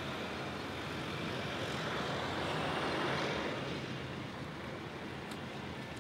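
Rushing noise of a passing vehicle, swelling to a peak about halfway through and then fading, over a faint steady hum.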